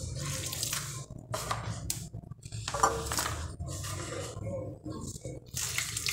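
Water splashing and dripping in uneven bursts as a mesh strainer is handled over a plastic basin, with a sharp knock about three seconds in.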